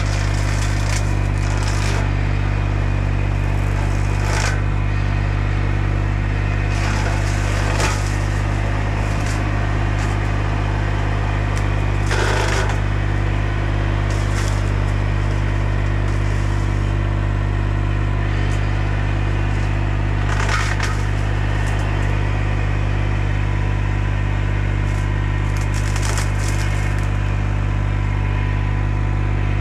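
Bobcat E35 mini excavator's diesel engine running steadily at high revs, driving a Baumalight CXC530 hydraulic mower head that crackles and splinters as it shreds tree limbs, with sharp cracks of wood several times.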